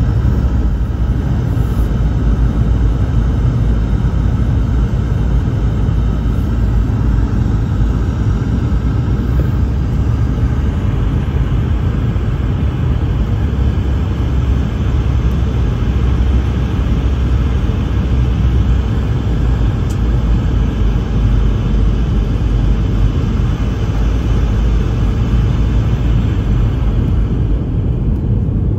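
Jet airliner in flight, its engine and airflow noise making a steady low rumble. A little more hiss comes into the upper range from about eleven seconds in.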